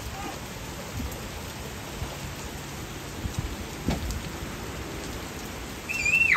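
Heavy rain pouring steadily onto a paved street and parked cars. Near the end comes one brief high call that holds its pitch and then drops sharply.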